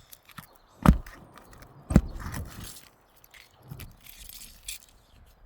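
A nail-pulling tool worked under asphalt roof shingles: two sharp knocks about a second apart as it strikes and catches roofing nails, each followed by a short gritty scrape against the shingles.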